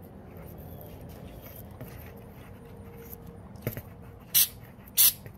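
Aerosol can of Gorilla Waterproof Patch & Seal spraying in short bursts: a click, then two quick hisses about half a second apart near the end.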